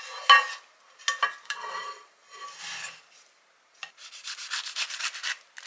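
A pan-toasted sausage-and-cheese tortilla scraping as it is slid out of a frying pan onto a ceramic plate with chopsticks, then a knife sawing through its crisp browned crust: a quick run of rasping crunches near the end.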